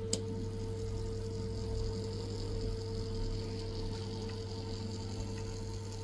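Built-in printer of a handheld battery conductance tester running, a steady electrical hum and whine with no strokes or breaks.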